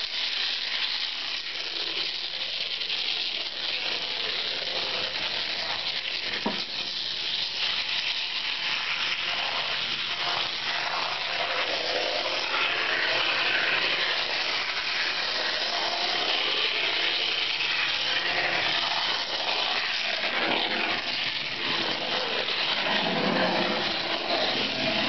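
Model trains running on a layout: a steady rattle and whir of wheels and motors on the track, with a single sharp click about six and a half seconds in.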